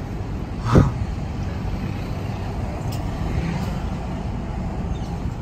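Steady low road rumble heard from inside a moving hybrid car in city traffic, with a single short thump just under a second in.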